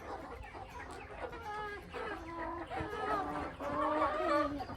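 Young chickens clucking, with a string of wavering calls through the second half.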